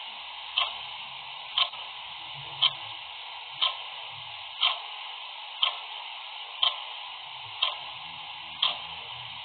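Clock ticking steadily, one sharp tick each second, over a constant hiss.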